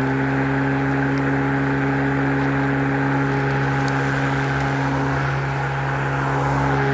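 Cordless 18-inch lawnmower with two 20-volt lithium batteries, its electric motor and blade running at a steady hum. It is set to full speed.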